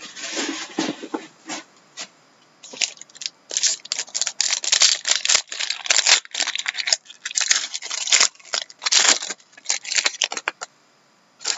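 Foil wrapper of a trading-card pack torn open and crinkled by hand: a dense run of sharp crackles and rips, starting about two and a half seconds in and stopping about a second before the end.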